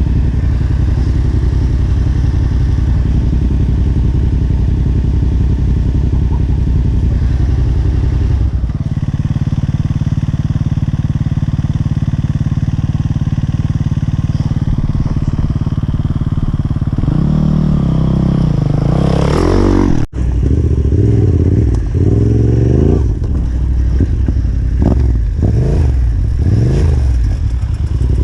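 Yamaha Ténéré 700's parallel-twin engine running steadily on a dirt trail, then revving up and down repeatedly from about two-thirds in, with a brief cut-out of sound near the middle of that stretch.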